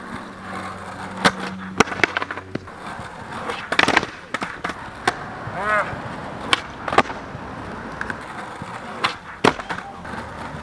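Skateboard with Tensor Mag Light trucks rolling on concrete, broken by a series of sharp wooden clacks as the tail and nose strike the ground on pops and landings of nose manual nollie flip attempts.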